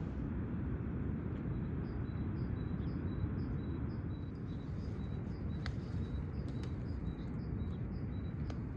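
Wind rumbling on the microphone, with a small bird repeating a short high chirp about twice a second. A few sharp clicks come in the second half.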